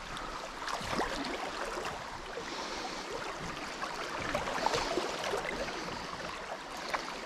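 Shallow river current running over gravel close by, a steady rushing of water, with a few faint clicks.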